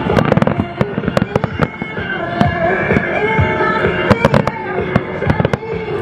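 Aerial fireworks bursting in rapid volleys of bangs, thickest in the first second and a half and again about four to five seconds in, with music playing alongside.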